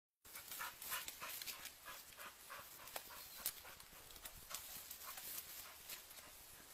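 Dog panting as it climbs a tree, about three quick breaths a second at first, mixed with short scratchy clicks.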